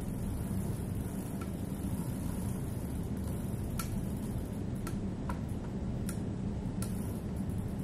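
Sharp, irregular clicks, about one a second, from a bicycle's bottom bracket area over a steady low rumble, the kind of clicking suspected to mean a bottom bracket problem.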